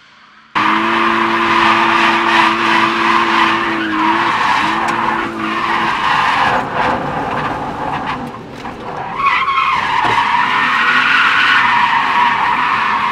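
Car drifting: tyres squealing over an engine held at steady high revs, cutting in suddenly about half a second in, with a brief break in the engine note around four seconds in and a dip in loudness around eight to nine seconds.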